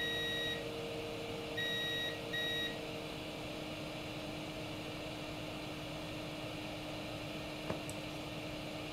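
Digital multimeter's continuity beeper sounding three times, a half-second beep and then two shorter ones close together about a second later, as the probes touch across the resoldered SMD inductor: the beeps confirm continuity through the repaired joint.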